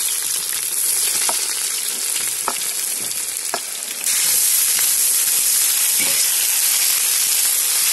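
Sliced onion sizzling as it fries in hot oil in a cast-iron kazan, stirred with a slotted metal skimmer that ticks against the pot a few times. The sizzle gets louder about four seconds in.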